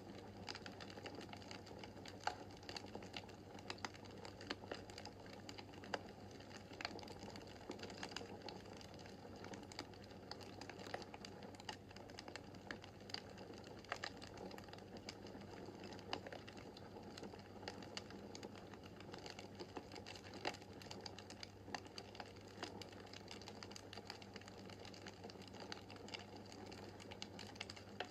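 Wood fire crackling in a fireplace: irregular sharp pops and crackles, a few louder snaps among them, over a soft steady hiss and a low hum.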